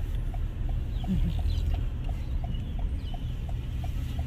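Steady engine and road rumble inside a moving car, with the turn-signal indicator ticking evenly about three times a second.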